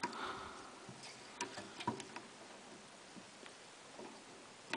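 Scattered light clicks and taps of a hard drive being shifted in a PC tower's metal drive bay, lining up its screw holes.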